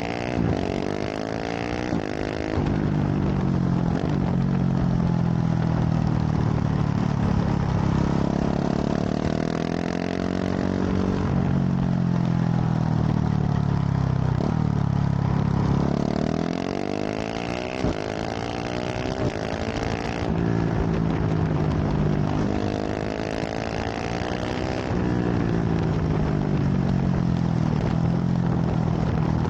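KTM 690 SMC R single-cylinder engine through a full LeoVince exhaust, ridden hard: the pitch climbs under acceleration, then falls on the throttle-off and gear changes, several times over.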